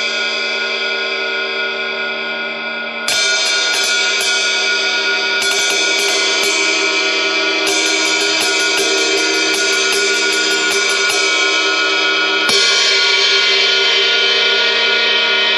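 Paiste Sound Formula Reflector 20-inch Power Ride cymbal being played in runs of quick strokes, its dense overtones ringing between hits, with harder hits about three seconds in and about twelve and a half seconds in.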